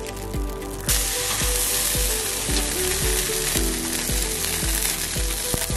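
Salmon fillet frying in oil on a hot flat-top steel griddle, a steady sizzle that jumps louder about a second in as the fillet is turned onto fresh hot oil. Background music with a steady beat plays underneath.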